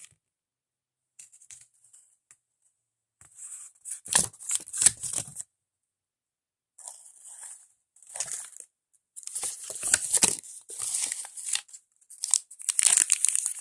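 Small toy wrapper being torn open and crinkled by hand, in several short bouts with silent pauses between them.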